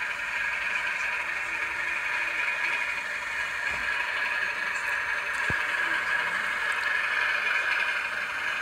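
Model railway diesel locomotives running on a layout: a steady buzzing hum, with a single faint knock about five and a half seconds in.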